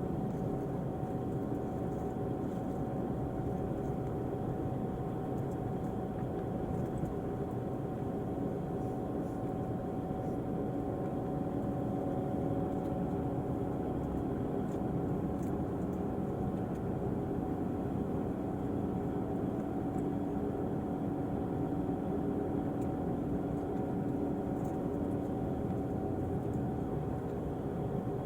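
Diesel engine of a Volvo-chassis Irizar i6s coach running steadily: a constant drone with a few steady hums, unchanging in level or pitch.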